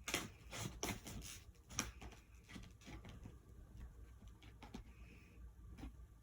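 Faint scattered taps, scrapes and rustles of a cardboard product box being handled and opened by hand.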